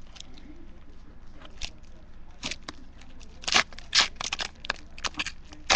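Trading cards being handled and flipped through: a string of crisp paper flicks and rustles, the loudest coming a little past halfway.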